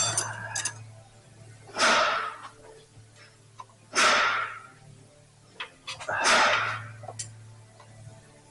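A hand-held air tool run in three short hissing bursts, about two seconds apart, over a steady low hum, the way it goes when bolts are being undone on an engine.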